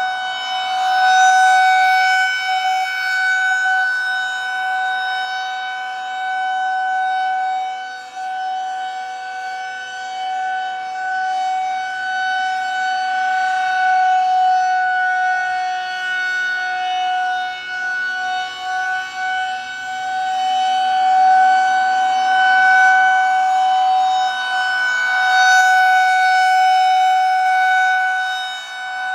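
Federal Signal 2001-130 rotating outdoor warning siren holding one steady tone for a tornado drill. It swells and fades as the turning horn sweeps toward and away.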